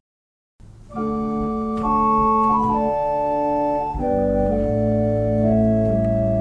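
Organ music: after a brief silence, held chords begin about a second in and change every second or so, with a deep bass note coming in near the middle.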